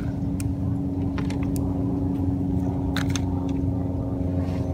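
A steady mechanical hum with a fixed pitch, with a few faint clicks over it.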